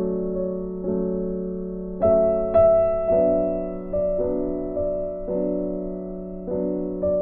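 Slow, soft piano background music, with notes and chords struck about once a second and left to ring.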